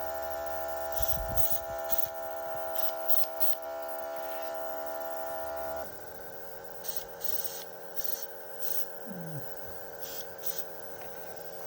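Small airbrush compressor's electric motor humming steadily, with short hisses of air from the airbrush as it sprays. About six seconds in the hum drops in pitch and gets quieter.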